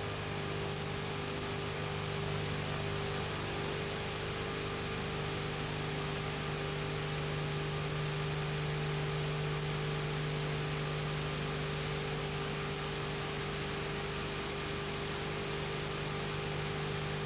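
Steady hiss with a steady low electrical hum under it: the background noise of an old analogue videotape recording.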